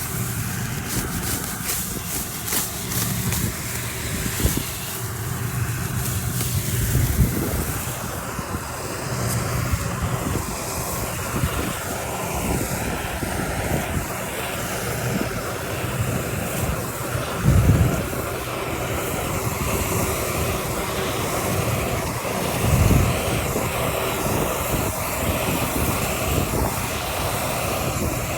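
Engine of rice-harvesting machinery running steadily under a rushing noise, with two brief louder low bursts in the second half.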